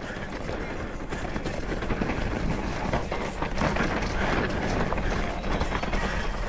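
Trek Slash mountain bike riding down a dirt trail: tyres running over loose dirt and rock, with the chain and bike rattling over the bumps, getting louder about two seconds in.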